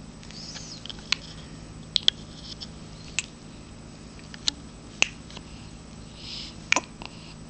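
Newborn baby hiccuping: a series of short, sharp little clicks at irregular intervals, with faint squeaky breaths between them.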